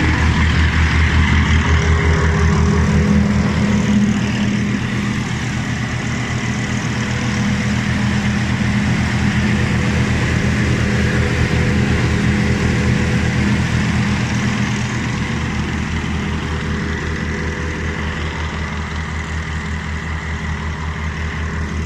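SP-10 blueberry harvester running steadily at work: a loud, even engine drone with a faint high whine over it, easing slightly about four seconds in.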